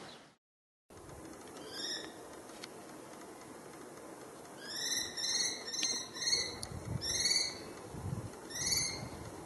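A common kestrel calling: short, shrill, upward-sliding notes, one about two seconds in, then a run of four about half a second apart, and two more spaced out near the end.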